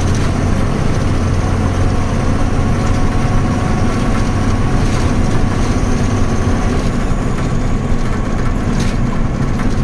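Tata 3118 truck's diesel engine running steadily under way, with road and cab noise as heard from inside the cab. A constant low hum with no change in pace.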